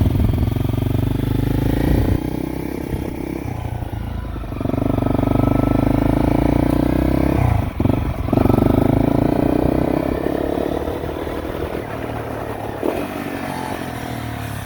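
Motorcycle engine running close by, growing louder about four and a half seconds in, dipping briefly just before eight seconds, loud again until about ten seconds, then easing off.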